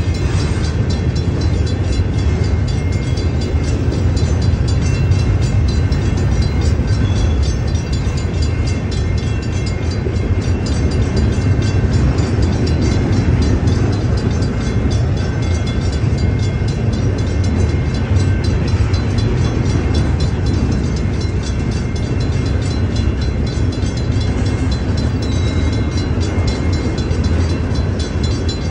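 Autorack freight cars rolling steadily past a grade crossing: a continuous heavy rumble of wheels on rail. The crossing's electronic bell rings faintly and repeatedly above it.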